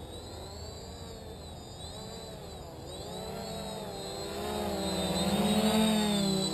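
SKY-Hero Little Spyder quadcopter's four Cobra 2217 950kv brushless motors spinning 10x4.5 props on a 4S battery: a pitched hum whose pitch wavers up and down with throttle changes. It grows louder from about halfway through as the quad comes in close and low.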